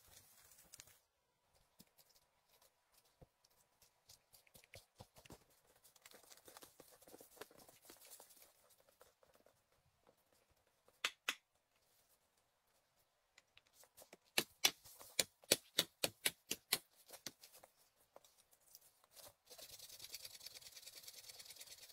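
Footsteps and twigs crunching and snapping in snow-covered woodland, with a run of sharp cracks and snaps at about four a second in the middle. A steady fast rasping begins near the end as a fallen branch is worked on.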